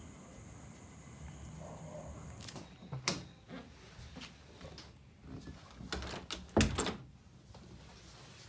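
A series of knocks and clatters over a low background hum, the loudest near the end.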